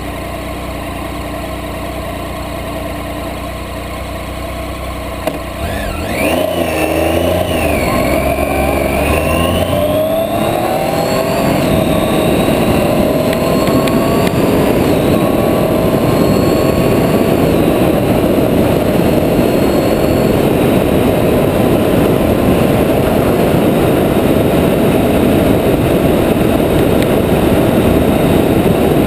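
Triumph Tiger 800 XCa's three-cylinder engine running steadily, then a click about five seconds in and the engine pulling away, its pitch rising and dropping back several times through the gears. From about eleven seconds in, loud wind and tyre noise covers the engine as the motorcycle rides at speed on a gravel road.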